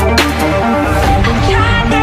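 Electronic background music: a synth melody in short stepped notes over a steady bass line.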